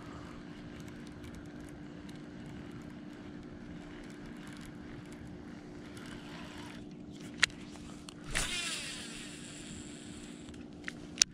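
Baitcasting reel being cast: a sharp click, then about a second of the spool spinning as line pays out, and another sharp click near the end as the reel is engaged. A steady low hum runs underneath.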